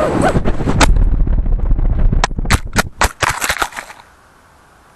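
FPV racing quadcopter crashing, heard through its onboard camera: the motor whine stops right at the start, the typical result of a failed ESC, and a rapid run of sharp knocks and clatters follows as the quad tumbles into the ground. After about four seconds only a faint hiss remains.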